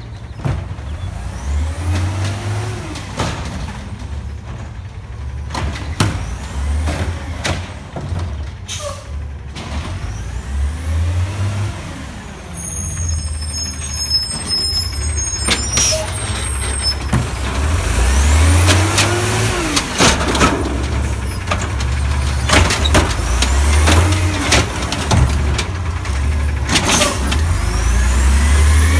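Natural-gas engine of an Autocar WX garbage truck revving up and down again and again to drive the hydraulics of its Amrep automated side-loader arm, over a low rumble, getting louder as the truck comes close. Short air-brake hisses and clanks come in between.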